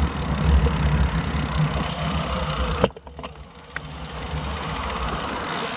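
Wind buffeting the microphone of a bicycle-mounted camera as the road bike rolls along, a loud low rumble that drops off abruptly about three seconds in as the bike slows. After that come quieter rolling noise and faint clicking.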